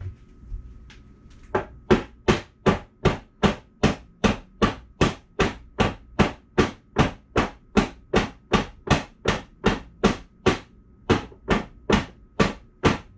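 A tray holding a mold of freshly poured cold process soap banged on the floor over and over, starting about a second and a half in at about two and a half knocks a second, to tap the air bubbles out of the raw soap.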